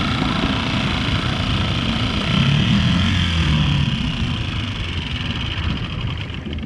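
Tohatsu 3.5 hp outboard motor running under way, pushing a small inflatable boat. It gets louder about two seconds in, then slowly eases off toward the end.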